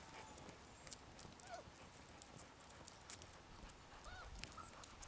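Near silence: a few faint, short squeaks from Vizsla puppies, with scattered light clicks.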